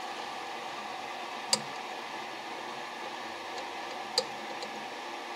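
Two sharp metallic clicks about two and a half seconds apart as hand tools work at an aircraft carburetor, over a steady background hiss.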